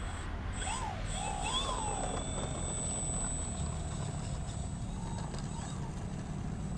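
Electric motor and propeller of an Ugly Stick RC plane taxiing at low throttle: a faint whine that rises and falls in pitch a few times in the first two seconds and again briefly around five seconds in. The whine sits over a low, rumbling noise.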